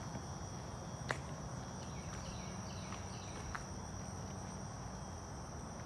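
Crickets trilling in one steady high note. There is a single sharp click about a second in, and a few faint short chirps a little later.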